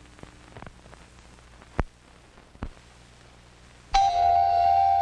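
Quiet hiss and hum from an old film soundtrack, broken by two sharp clicks. Near the end a loud held musical tone with overtones comes in suddenly and keeps sounding.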